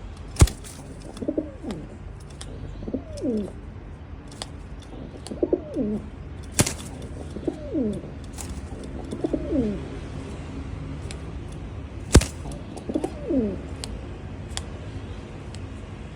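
Racing pigeon cooing: about six short calls, each falling in pitch, every couple of seconds. Sharp knocks break in between them, three loud ones among several fainter taps.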